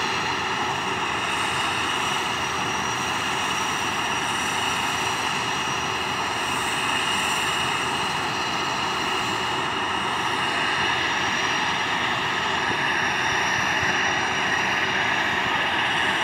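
Turboprop aircraft engines running steadily: a constant high whine over a rushing hiss.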